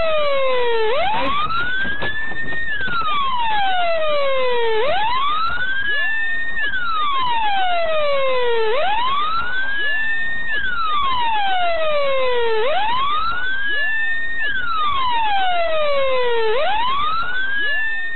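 An emergency-vehicle siren wailing at a steady loudness. Each cycle rises over about two seconds and falls over about two more, repeating about every four seconds.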